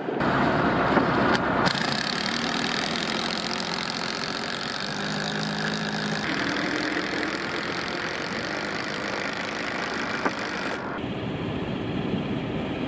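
A crane truck's engine idling steadily, its noise changing abruptly about two seconds in and again near the end.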